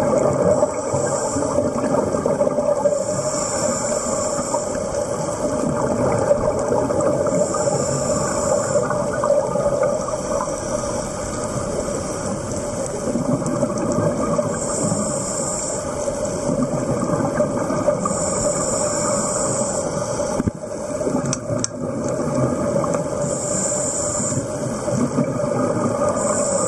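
Underwater sound of a scuba diver breathing through a regulator: a short hiss on each inhalation, repeating every few seconds over a steady underwater rush.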